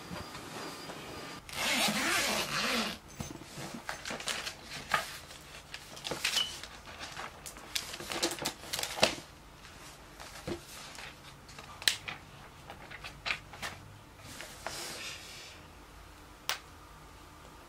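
Paper rustling and pages of a thin-paged book being turned, with a chair shifting as a person settles at a desk. The loudest rustle comes about two seconds in, followed by many short scattered rustles and light taps.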